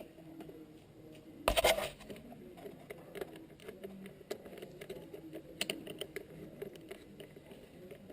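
Irregular small clicks and taps of a bolt and hand tool as the plastic exhaust cover is bolted onto a Honda CRF mini bike, with a louder clatter about a second and a half in.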